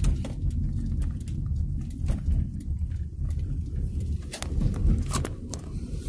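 Car in motion heard from inside the cabin: a steady low road-and-engine rumble, with a few light clicks.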